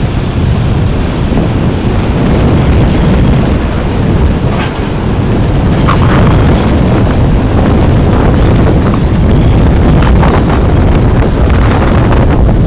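Heavy wind buffeting the microphone from the rush of air over the roof of a moving truck, a steady deep rumble with a few light knocks.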